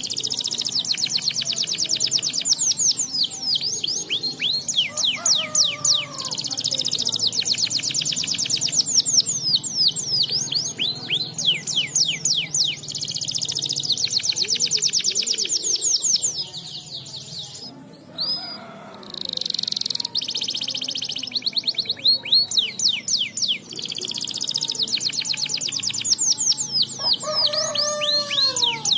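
Domestic canary singing a long, fast song of rapid trills and rolls, with a short break about two-thirds of the way through.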